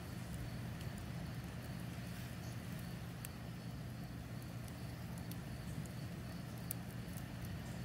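Campfire burning in a metal fire ring: a steady low rumble of flames with scattered sharp crackles and pops from the burning wood.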